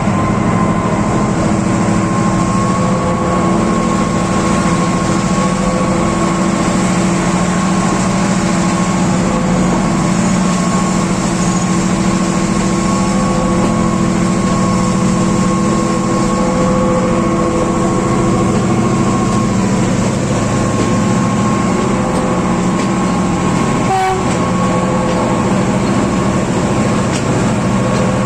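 Sri Lanka Railways Class M6 locomotive's EMD diesel engine working hard, a loud steady drone with a constant whining tone over it. Near the end there is one short knock.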